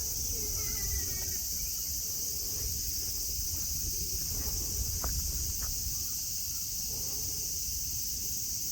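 Cicadas singing in a steady, unbroken high-pitched drone, over a low background rumble.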